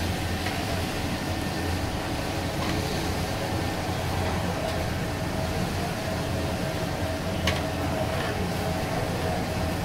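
Steady sizzle of battered fish deep-frying in a large karahi of hot oil, over a low, steady hum of traffic and street noise, with one sharp click about seven and a half seconds in.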